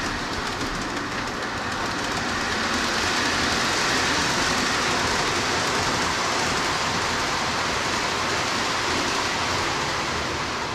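Lionel O gauge toy train running on three-rail track: a steady rolling rumble of metal wheels and motor with light clickety-clack over the rail joints.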